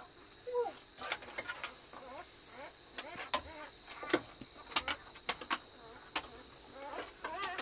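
Newborn husky puppies squeaking and whimpering in short, high, wavering cries, with sharp clicks in between.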